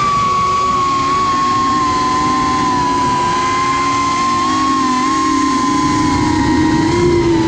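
Electric motors and propellers of a 3-inch FPV quadcopter whining as it flies, heard from the GoPro mounted on it, with wind and propeller-wash noise underneath. The whine's pitch shifts slightly with throttle, and a lower tone rises briefly near the end.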